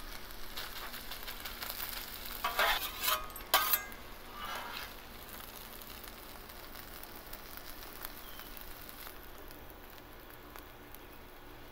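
Chopped steak, peppers and onions sizzling on a hot flat-top griddle, with metal spatulas scraping across the steel a few times a couple of seconds in as the meat is scooped up. The sizzle grows quieter toward the end.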